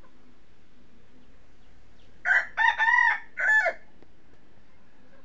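A rooster crowing once, about two seconds in: a four-part cock-a-doodle-doo with a long, arching third note, lasting about a second and a half.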